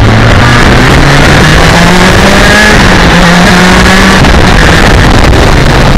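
BMW K1200R Sport's inline-four engine pulling under acceleration, its note rising over the first couple of seconds, then easing slightly and holding before fading about four seconds in, under heavy wind rush on the on-bike microphone.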